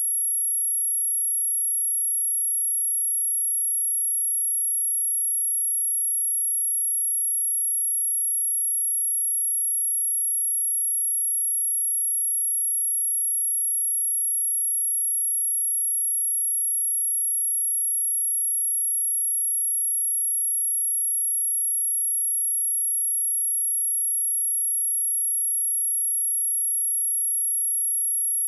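A steady, very high-pitched pure tone: an 11,235 Hz sine-wave speaker test tone, one unchanging pitch at constant loudness.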